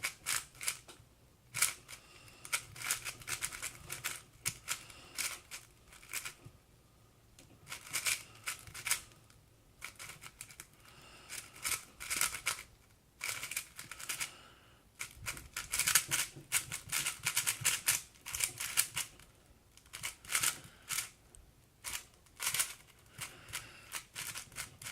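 Magnetic MoYu Aosu GTS M 4x4 speed cube turned fast during a timed solve: quick runs of clacking layer turns in bursts, broken by brief pauses, longest around a third of the way in.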